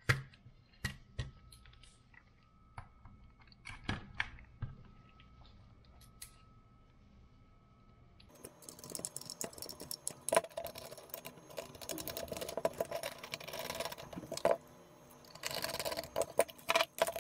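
Scattered light clicks and taps, then from about eight seconds in a dense run of small clicking and rattling: the metal enclosure parts of a soldering station being handled and fitted together.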